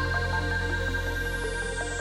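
Electronic background music: sustained synthesizer notes over a deep held bass, with slow falling sweeps in the highs.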